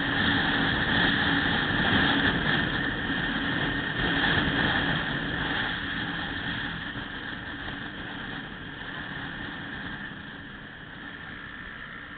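Riding noise on a motorcycle-mounted camera: wind rushing over the microphone over the motorcycle's engine and road noise, easing off through the second half.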